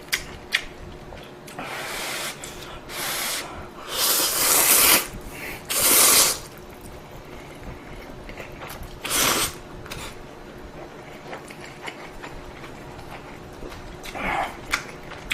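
Ramen noodles being slurped: about five loud slurps, the longest about a second. Quieter mouth sounds of eating come between and after them.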